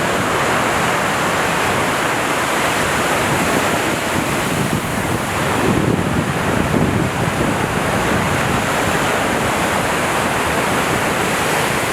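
Sea waves breaking and washing onto a beach, a steady rushing surf that swells a little about halfway through, with wind on the microphone.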